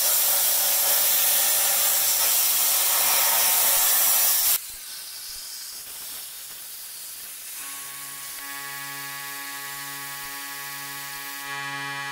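CNC air-plasma cutting torch arc hissing loudly and evenly while cutting steel plate, cutting off abruptly about four and a half seconds in. Quieter noise follows, then steady musical tones come in for the last few seconds.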